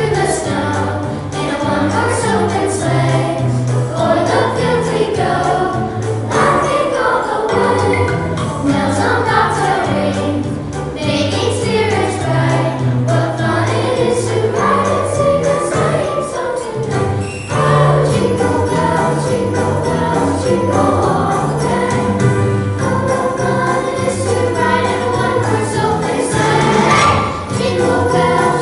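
A holiday song: a choir singing over an accompaniment with jingle bells and a steady bass line.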